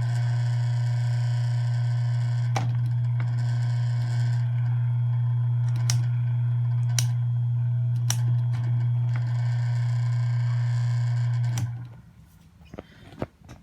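Asahi PF 620 electric fan running with a loud steady motor hum and sharp rattling clicks every second or few, a rattle that persists even after a new stator and capacitor and a sanded shaft. The hum cuts off suddenly near the end, leaving a few faint clicks.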